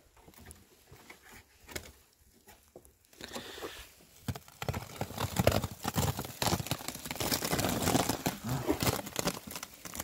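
Fabric insulation layers being pulled back off the top of a wooden beehive by hand: rustling and crackling of the cloth and quilted pad, starting about three seconds in and loudest toward the middle.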